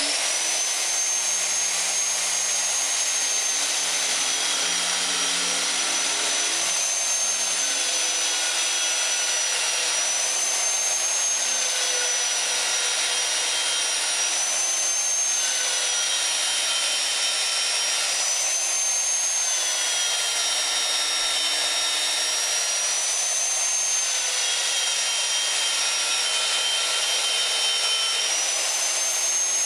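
Magnetic drill press motor running under load while drilling a hole into a steel post: a steady high whine whose pitch sags and recovers every few seconds as the bit is fed into the metal, over a constant hiss.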